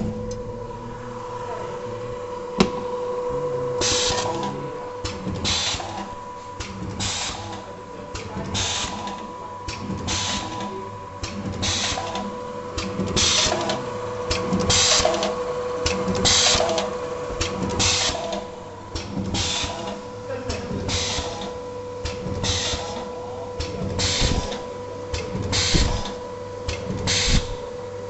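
Automatic plastic-zipper gapping and stripping machine running, with a steady hum throughout. From about four seconds in, short sharp bursts repeat about once or twice a second as it works through its gapping cycles.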